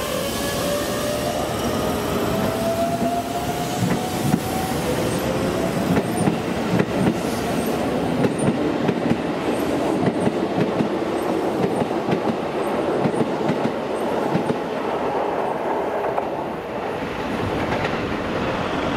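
Keikyu 600 series electric train with Toyo traction equipment pulling away. Its motor whine rises in pitch over the first few seconds as it accelerates, then the wheels clatter over rail joints as the cars pass.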